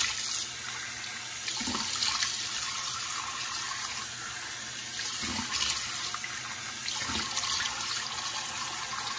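Bathroom sink tap running steadily into the basin while hands scoop water onto the face to rinse off cleanser, with a few short splashes.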